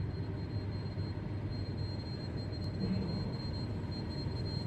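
Steady low rumbling noise with a faint, thin high-pitched whine running through it.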